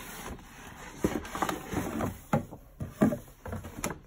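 Stiff paper and cardboard being handled: a paper shopping bag is lifted out of a cardboard shipping box and set down, with rustling, scraping and a series of light knocks.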